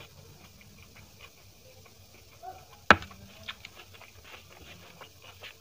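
Close eating sounds of a meal eaten by hand: fingers mixing rice and dal on a plate, with small wet clicks of chewing. One sharp, loud click about three seconds in.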